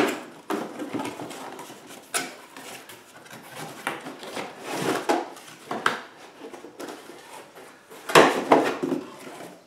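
Cardboard box being opened and handled: flaps and packing rustling and scraping, with irregular sharp knocks, the loudest about eight seconds in as the plastic electric fan assembly is slid out of the box.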